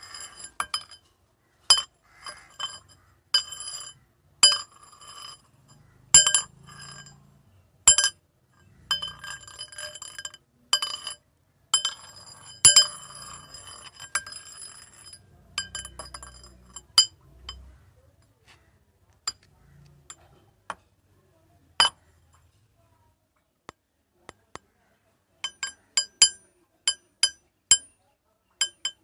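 Metal rods clinking and tapping together, each strike ringing with a bright, high metallic tone. Busy runs of taps fill the first half, a few scattered single taps follow, and another quick run comes near the end.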